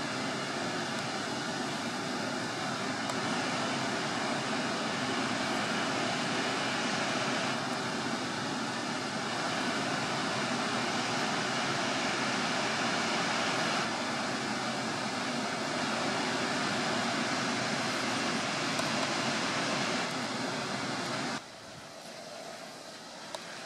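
Steady roar of rushing floodwater, shifting slightly in tone every few seconds, then dropping suddenly to a quieter hiss near the end.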